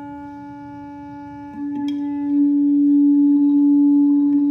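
Bluetooth speaker playing a steady 288 Hz test tone from a tone-generator app, growing louder about a second and a half in. A single light knock comes near the middle.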